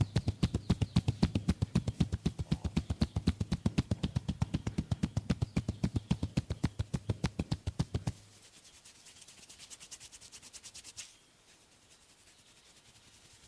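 Rapid, even hand percussion on a bare back, about five slaps a second, stopping abruptly about eight seconds in. Then fainter rubbing of hands over skin, with a single short click near eleven seconds.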